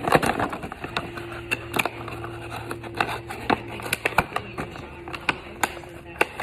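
Irregular clicks and crinkles of a toy airliner's cardboard box and plastic packaging being handled and opened by hand.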